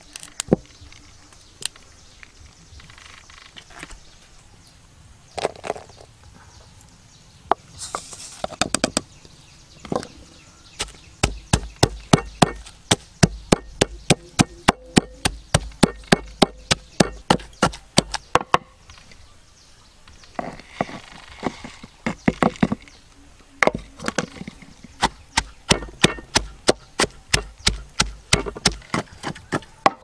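A knife chopping food on a wooden cutting board: a few scattered knocks, then two long runs of quick, even strokes, about three a second, with a pause in the middle.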